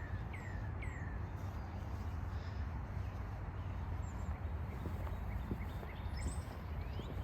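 Outdoor background: a steady low rumble with birds chirping over it. A quick run of short, falling chirps comes in the first second, then scattered fainter chirps.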